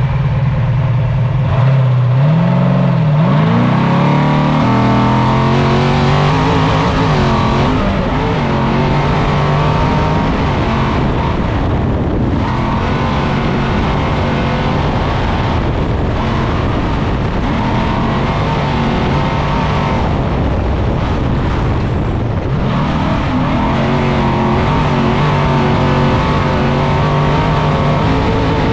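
Trophy Truck's 1000-plus-horsepower engine running hard, heard from inside the cockpit. It climbs in pitch as it accelerates from first gear, then dips briefly about every four seconds as it shifts up.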